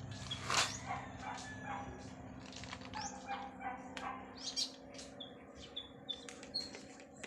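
Small birds chirping in a backyard: many short high chirps and a few whistled notes, with a sharp louder call about half a second in. A steady low hum runs underneath.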